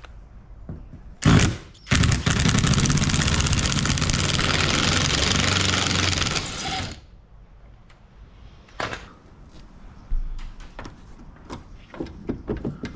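Small electric motor running for about five seconds, a cordless screwdriver undoing a screw in a car door, followed by scattered clicks and knocks.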